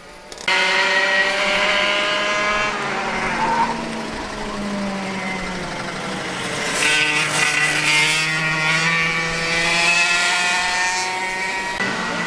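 Several racing kart engines running at once, their pitch rising and falling as they accelerate and back off, cutting in abruptly about half a second in.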